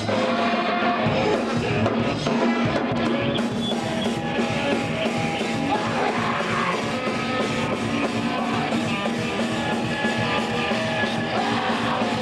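Loud punk rock music with yelled vocals, playing without a break.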